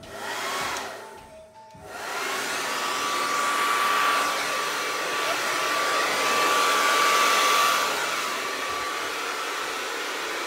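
Hair dryer blowing wet poured acrylic paint across a canvas: a short blast, a brief pause, then steady running with a thin whine from about two seconds in, easing off somewhat near the end.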